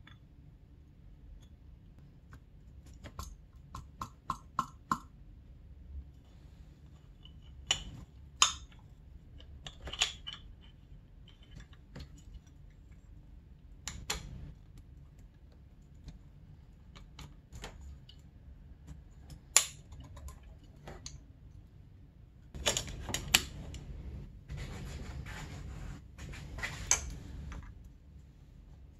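Light metal clicks, taps and a few short clinks as a piston is fitted over a connecting rod's needle bearing and its wrist pin is pushed through, with a stretch of scraping and rubbing near the end.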